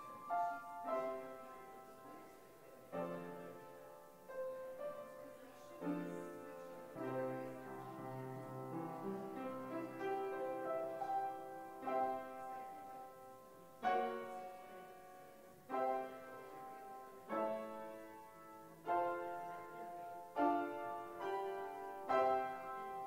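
Solo piano playing a slow hymn-like piece, chords struck about every one to two seconds and left to fade.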